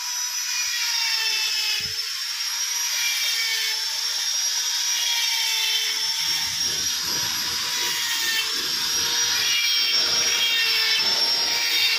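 Electric power tool running with a steady high whine. From about six seconds in, a rougher, lower noise joins it.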